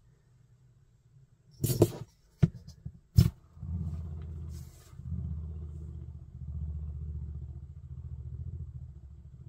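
A few sharp knocks about two to three seconds in as a turned live-oak wooden top is set going. Then the top spins on the floor with a steady low rumble that wavers in loudness.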